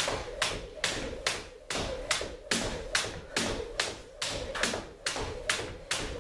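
Jump rope skipping on a hardwood floor: a steady rhythm of sharp slaps, about two and a half a second, as the rope hits the floor on each turn.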